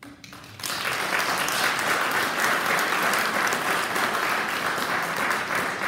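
Audience applauding, breaking out about half a second in: a dense, steady patter of many hands clapping.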